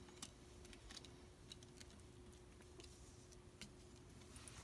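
Near silence: faint room hum with a few soft, light clicks and taps as tarot cards are laid down and straightened on a cloth-covered table.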